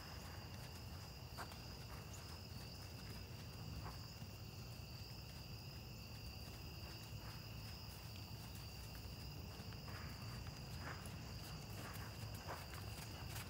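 Steady insect chorus of two unbroken high-pitched chirring tones, with a few faint thuds of a horse's hooves on the sand arena footing, more frequent near the end as the horse comes closer.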